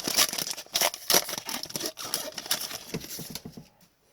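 Foil wrapper of an Upper Deck hockey card pack crinkling and tearing as it is ripped open and handled; it dies away about three and a half seconds in.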